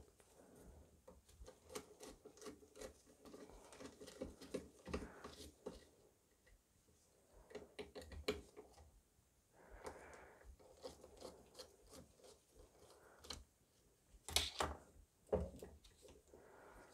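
Faint clicks, taps and rubbing as a 3D printer's hotend assembly and its plastic cable chain are handled while the bed-levelling sensor is taken off. Two sharper clicks about a second apart near the end.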